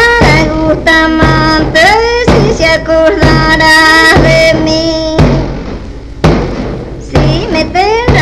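Salta folk song: a single high voice with sliding pitch that breaks upward between notes, sung in phrases over a steady drum beat, in the style of a baguala with caja.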